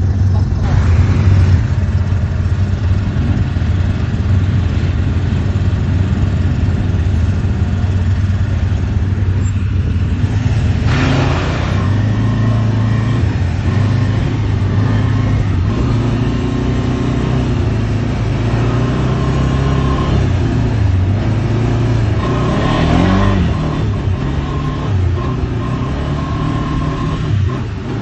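ATV engine running close by as the quad rides along a dirt track, its pitch rising and falling with the throttle, with a few brief rushes of noise.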